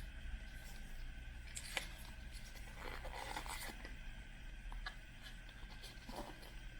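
Hands handling and opening plastic surprise-ball toy packaging: scattered clicks and scrapes, with a short burst of crinkling and scraping in the middle, over a low hum.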